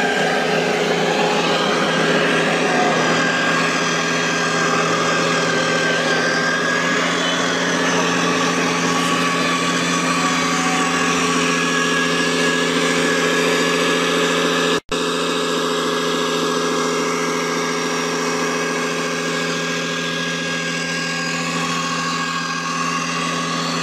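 Diesel truck engine sound from RC scale model trucks, running steadily at idle-like speed. It drops out for an instant about fifteen seconds in.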